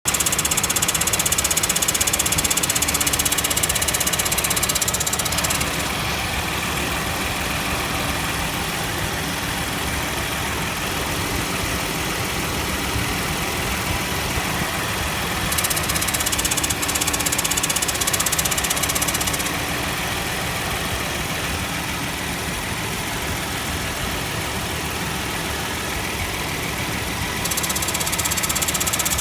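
Nissan Elgrand E51's air conditioning running with an abnormal noise over a steady engine hum. The sound is louder and hissier at first, drops about five seconds in, swells again around the middle, drops, and rises again near the end.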